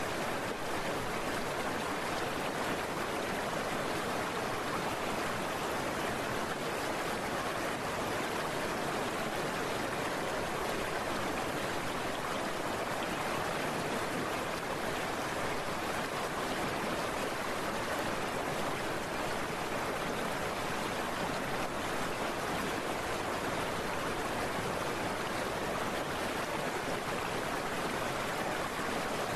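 Heavy rain pouring down, a steady, unbroken rushing noise.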